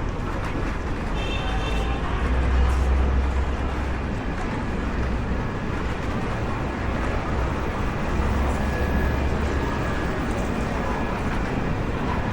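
Busy city street ambience: a steady wash of background noise with faint voices. A deep low rumble swells twice, about two seconds in and again about eight seconds in, as from passing traffic.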